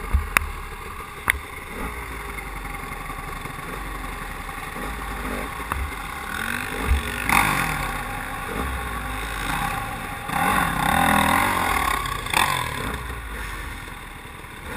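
Dirt bike engine running and revving unevenly in a creek crossing, with rushes of water splashing about seven seconds in and again around ten to twelve seconds.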